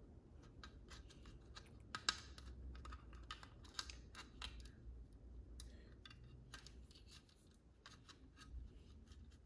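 Faint, scattered clicks and taps of the small plastic and metal parts of an electronic door lock being handled and worked apart, with the sharpest clicks about two seconds in and near four seconds in.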